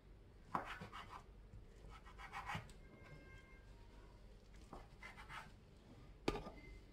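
Kitchen knife cutting through a stack of smoked turkey slices on a wooden cutting board: several short, soft scraping strokes against the board.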